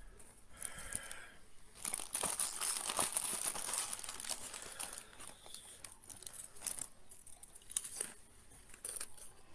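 A wrapper being crinkled and torn open: dense crackling from about two seconds in, thinning to scattered crinkles and clicks over the last few seconds.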